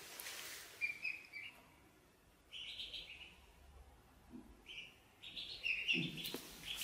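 Ducklings peeping in several runs of short, high chirps, with a few thumps near the end.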